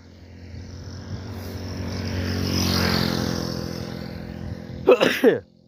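A motor vehicle passing, its steady engine note growing louder toward the middle and then fading away. Near the end comes a brief loud call that falls in pitch.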